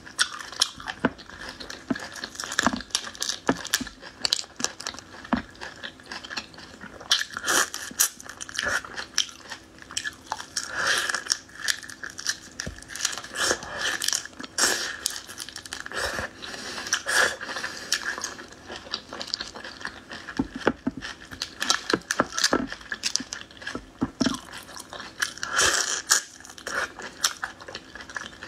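Close-up eating of raw shrimp in chili marinade: irregular crunches and clicks of biting and chewing, mixed with the crackle of shells being pulled apart by hand.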